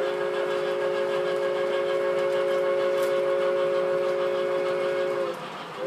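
An MTH model train's sound system blows a long, steady three-note chord whistle, held for about five seconds before it cuts off. The train's running noise continues underneath.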